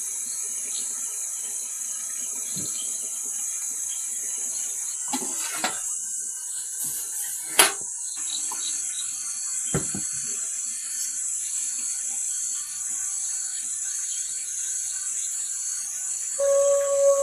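Night-time forest ambience: a steady high-pitched drone with a faint repeating short chirp, broken by scattered clicks and knocks, the loudest a sharp knock about halfway through. Near the end a long, slightly falling, pitched call or tone sets in.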